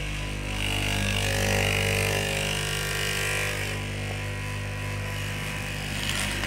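Electric straight-knife cloth cutting machine running with a steady motor hum. For the first few seconds a brighter, harsher buzz rides over the hum as the blade cuts through the stacked fabric.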